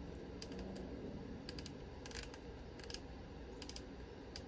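Small clusters of light, sharp clicks, about six groups spread irregularly, over a low steady hum.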